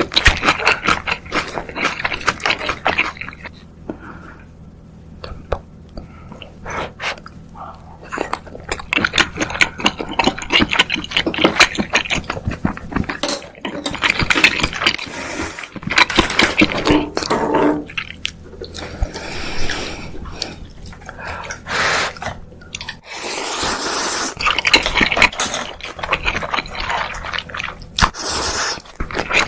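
Close-miked eating sounds from seafood ramen: wet slurping and chewing, with utensils scraping and clicking against the bowl and broth sloshing, in an irregular run of short noises.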